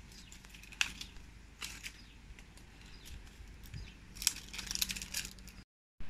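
Leaves and twigs of a mango tree crackling and rustling as green mangoes are picked by hand. A sharp crack comes about a second in, and a quick run of crackles comes about four seconds in.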